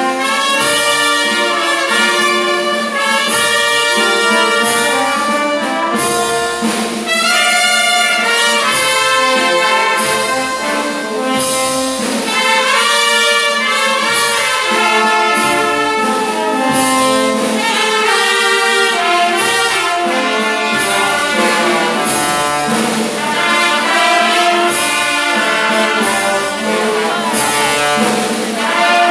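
Brass band playing slow, steady music with trumpets and trombones over a beat of about one stroke a second.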